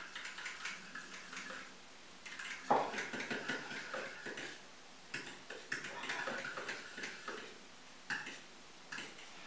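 An egg being beaten into melted lard, water and vinegar in a small bowl: quick light clicks of the utensil against the bowl, in spells of a second or two with short pauses.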